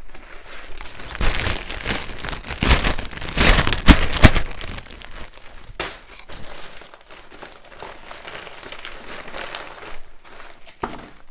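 A plastic courier mailer bag being torn open and crinkled by hand, with sharp tearing and crackling loudest about three to four seconds in, then softer plastic rustling as a bubble-wrapped package is pulled out.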